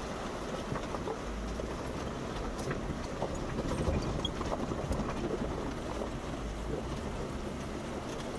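Jeep Wrangler Rubicon running slowly off-road, a steady low engine and driving noise with wind buffeting the camera microphone.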